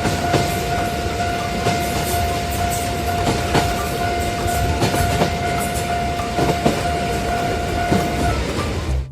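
A train running along the rails with a steady rumble and repeated clickety-clack, under one long steady horn note that stops near the end.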